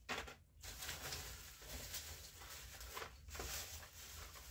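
Faint rustling and scuffing handling noise, coming in short irregular spells.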